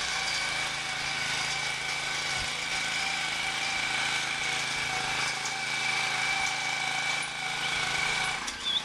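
Motorised ladder hoist running steadily with a high whine as it carries its platform up the ladder, cutting off near the end.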